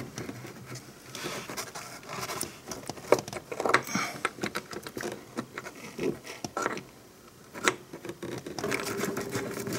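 Hands setting a new Bosch ignition coil into its mounting bracket: scattered light knocks, taps and scrapes of metal and plastic, with a faint steady hum coming in near the end.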